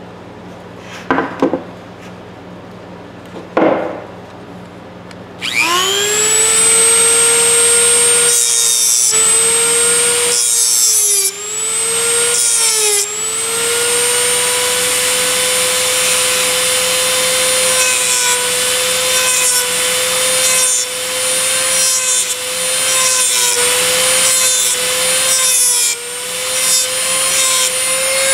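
Two short scrapes of a small hand file on the steel plier jaw. About five seconds in, a handheld rotary tool with a small abrasive cutting disc starts and spins up to a steady high whine. Its pitch dips again and again as the disc is pressed into the steel jaw, grinding metal off.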